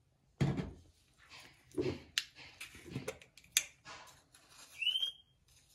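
Light clicks and knocks of spice jars and a spoon being handled, with a short rising squeak about five seconds in.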